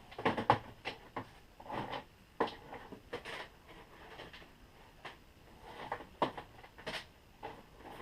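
Irregular clicks, scrapes and rustles of scrap wire being handled and pulled through a vise-mounted wire stripping tool.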